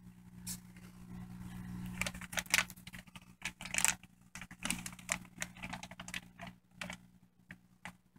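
Plastic fish-shipping bag crinkling and crackling in irregular bursts as hands work an aquarium net inside it, over a steady low hum.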